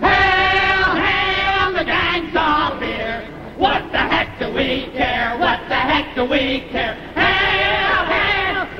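Male vocal quartet singing in close harmony: held chords at the start and again near the end, with quick, short, rhythmic syllables in between.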